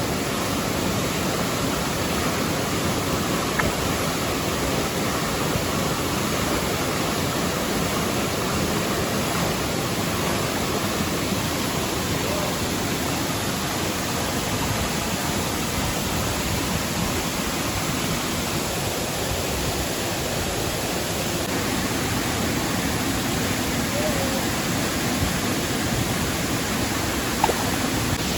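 Waterfall and its fast-flowing stream rushing steadily.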